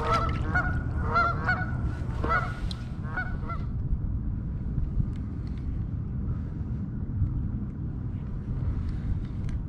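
Geese honking repeatedly for the first three and a half seconds, then stopping, over a steady low rumble of wind on the microphone that continues throughout.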